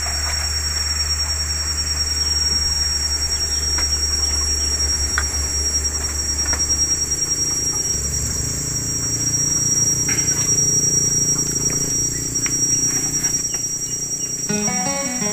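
Insects buzzing in a steady, high, unbroken chorus over a low rumble. Music comes in near the end.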